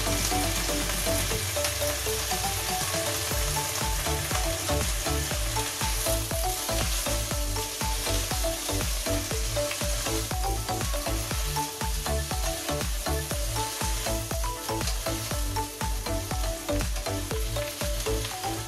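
Leafy greens sizzling as they stir-fry in a hot oiled pan, turned over with silicone tongs. Background music with a steady beat plays throughout.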